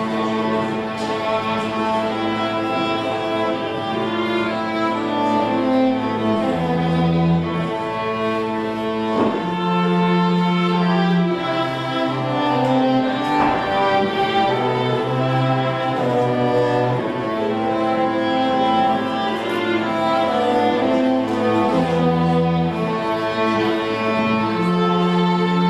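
Background music played on bowed strings, violin and cello, over long held low bass notes that change every few seconds.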